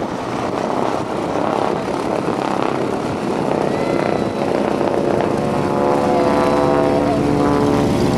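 North American T-6 Texan's Pratt & Whitney R-1340 radial engine and propeller at power in flight, a steady drone that grows a little louder and takes on a clearer pitch about halfway through.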